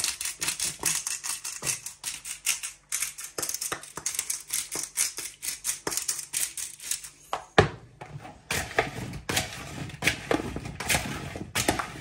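Metal spoon stirring and scraping oil-coated potato wedges around a plastic mixing bowl: a quick, uneven run of clicks and scrapes, several a second. About seven and a half seconds in the sound changes, as the wedges are turned over by hand.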